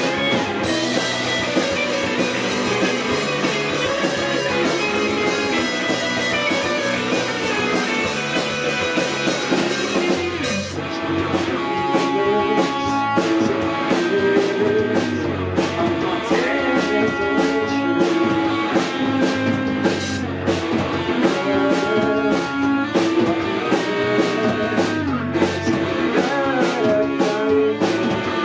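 Live rock band playing an instrumental passage on guitars and drum kit. About ten seconds in, the sound thins to a sparser groove with distinct drum hits under held guitar notes.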